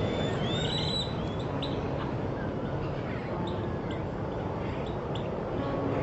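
Great-tailed grackles calling: a rising whistle about a second in, then scattered short sharp chips. Under them runs a steady low hum of road traffic.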